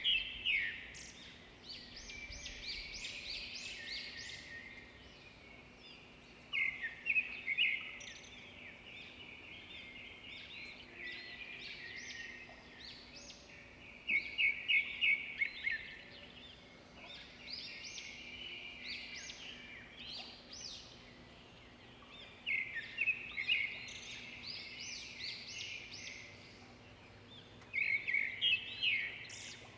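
Small birds chirping and twittering, with louder bursts of rapid chirps recurring about every seven seconds.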